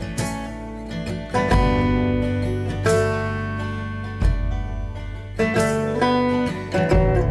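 Background music: acoustic guitar strumming chords in a country or bluegrass style.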